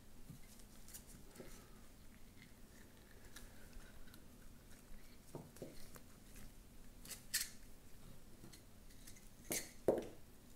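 Faint handling noise of an indicator wire being fed through a tail-tidy extension: scattered light clicks and scrapes, with a sharper click about seven seconds in and two louder ones near the end.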